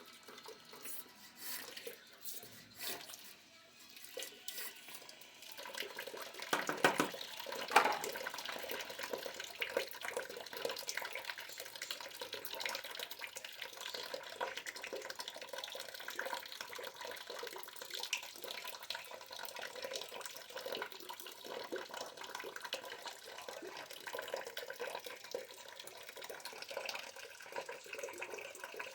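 A few light clicks, then about six seconds in hot water starts gushing out of the steam boiler's drain and keeps pouring steadily, as the sight glass is flushed out once more.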